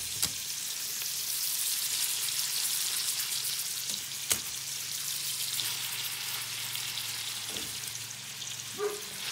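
Chops frying in melted butter in a pan: a steady sizzle, with two sharp clicks of metal tongs, one just after the start and one about four seconds in.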